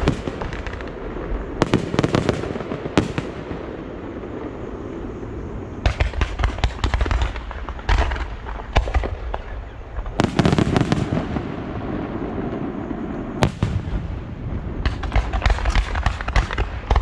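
Fireworks display: aerial shells bursting in clusters of sharp bangs, with a continuous low rumble and crackle between the volleys.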